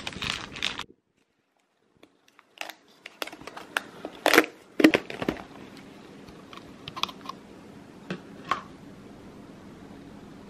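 A thin plastic bag crinkling in the hands, cut off abruptly by a second of silence. Then sharp plastic clicks and knocks as a clear plastic fruit-bowl container is handled and its lid taken off, the two loudest about four and five seconds in, with a few lighter taps after.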